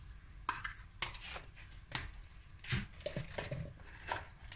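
Kitchen handling noises: a string of about eight sharp clicks, cracks and small knocks, irregularly spaced.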